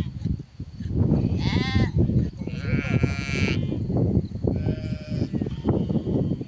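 A flock of sheep bleating: three wavering calls overlap in turn, over a constant shuffling and knocking from the animals.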